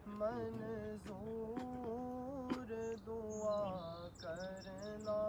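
A man's voice chanting an Islamic devotional recitation at a graveside, in long held notes that waver and slide between phrases.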